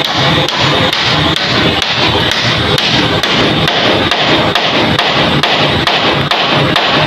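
Claw hammer striking a length of green bamboo to fix it to a post: a steady run of blows, about three a second.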